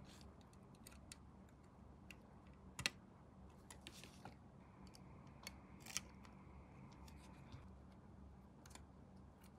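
Scattered small clicks and taps of plastic model parts and hobby tools being handled, with a sharper click about three seconds in and another about six seconds in, and a short scrape in between.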